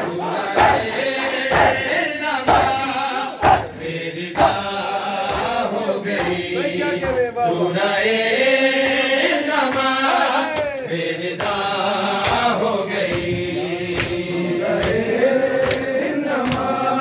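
Men chanting a noha together in mourning, with the crowd's open-handed chest-beating (matam) landing as sharp slaps about once a second.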